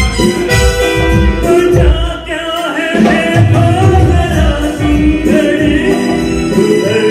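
Live band music with singing: a vocal line over keyboard chords and a hand-drum beat.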